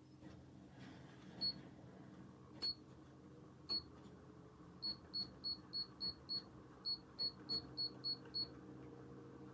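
Electronic appliance control panel beeping at each button press, with short identical high beeps. Three come about a second apart, then two quick runs of six at about three a second, over a steady low hum.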